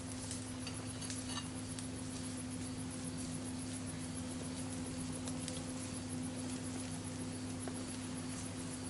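Steady low hum over a faint hiss, with a few faint ticks about a second in and again around five seconds.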